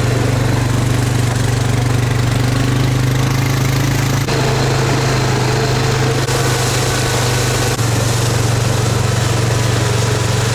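Steady low drone of a car engine running, with a loud constant hum.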